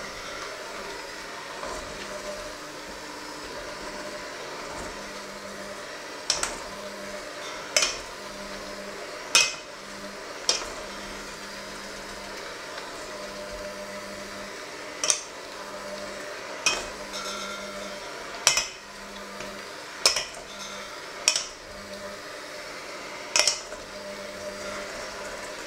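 Electric hand mixer running steadily in a stainless steel bowl of crumbly dough, its beaters knocking against the metal bowl about ten times at uneven intervals.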